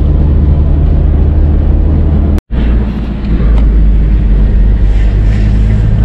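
Car running along a rough lane, heard from inside the cabin: a steady low drone of engine and road noise, broken off for an instant about two and a half seconds in.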